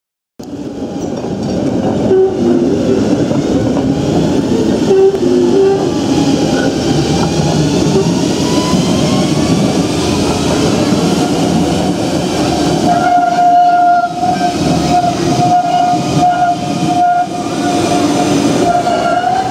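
An HTM GTL articulated tram passes close by with a steady running rumble of wheels on rails. A faint rising whine comes in midway, and a steady high tone sets in about two-thirds of the way through and holds to the end.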